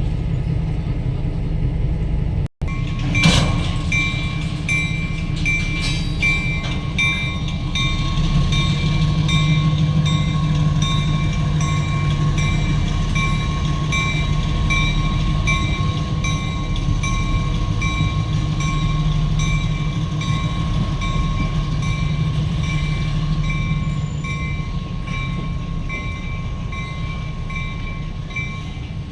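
Work train with a diesel locomotive moving slowly: a steady low engine rumble, with a high ringing tone pulsing about twice a second over it. Near the start the audio drops out for an instant, followed by a single sharp clank.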